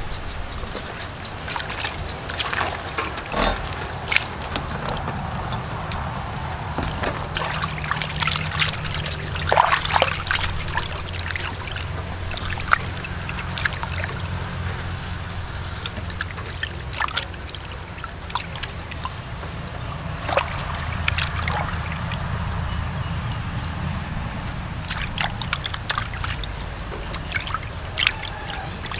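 Raw chicken gizzards being washed by hand in a stainless-steel basin of water: irregular sloshing and splashing with many short wet clicks, over a low, steady hum.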